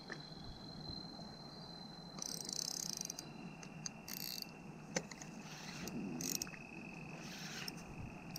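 Spinning reel being cranked in slow spells while playing a hooked tarpon, with short bursts of high hiss and a single sharp click. A thin steady high tone runs under it and steps down in pitch about three seconds in.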